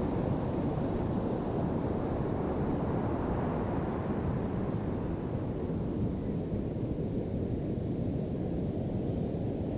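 Steady low rush of ocean surf on a beach, mixed with wind buffeting the microphone. The higher hiss eases off about halfway through.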